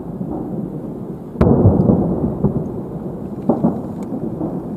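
Distant aerial fireworks salute bursting: a sharp bang about one and a half seconds in, then a long low rumble, with a couple of smaller cracks near the end.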